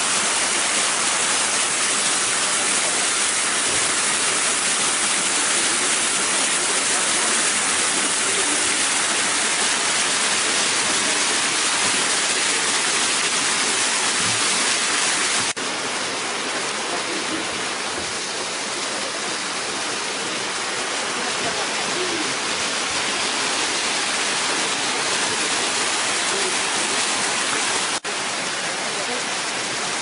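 Waterfall: a loud, steady rush of falling water. It cuts to a slightly quieter take about halfway through and again near the end.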